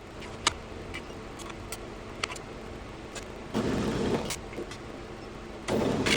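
Drill press work on an aluminium router lift base: a steady low hum with a few light metal clicks, then two short bursts of noise, each under a second, in the second half.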